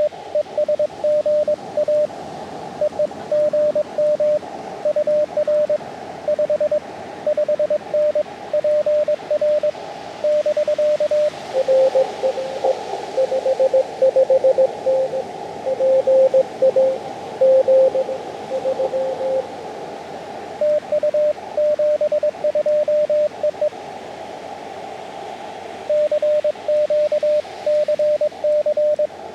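Morse code (CW) tones from the Elecraft KX2 transceiver's audio. A tone keyed in dots and dashes over receiver hiss is joined, about eleven seconds in, by a second station at a slightly lower pitch over louder band noise for about nine seconds. Then the higher-pitched keying returns.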